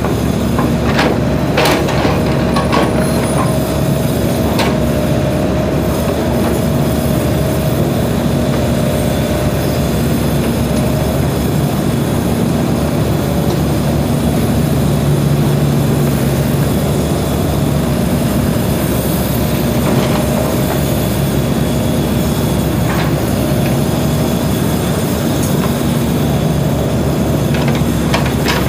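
SANY mini excavator's diesel engine running steadily under load, with a steady hydraulic whine as the arm digs and swings. A few sharp knocks, several in the first few seconds and a couple more later on.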